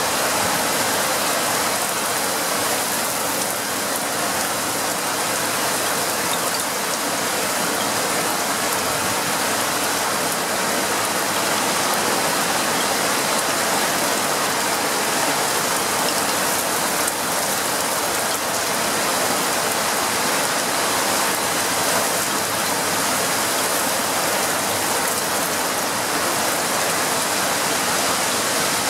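Heavy rain falling steadily in a thunderstorm: an even, unbroken hiss with no thunderclaps.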